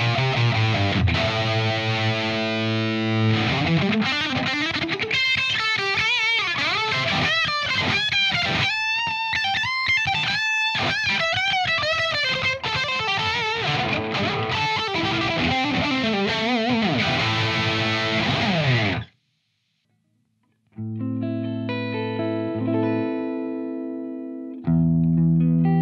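Distorted electric guitar playing fast lead lines with string bends and vibrato, cutting off about 19 seconds in. After a short silence, an electric guitar through a Friedman JEL-100 valve amp head plays ringing single notes and chords, then a louder, heavier distorted chord near the end.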